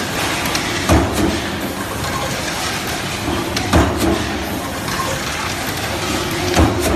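Steady hissing of water spray and steam over a machine's mesh chute, with a heavy thump from the machine about every three seconds, three in all.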